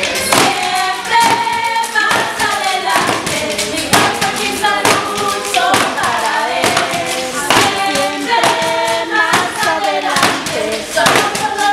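A group of young voices singing a song together over a steady beat of sharp hand-made percussive hits.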